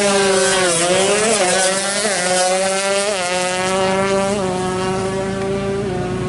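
Tuned Kawasaki Ninja two-stroke drag bike engine running hard at high revs, a buzzy note whose pitch dips and jumps several times before settling and dropping slightly near the end.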